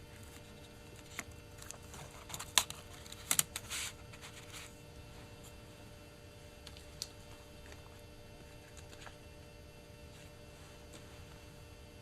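Small sharp clicks and taps from hands working on a Titanium PowerBook and its memory module: a cluster of clicks with a short rustle in the first four seconds, then one more click about seven seconds in, over a steady faint hum.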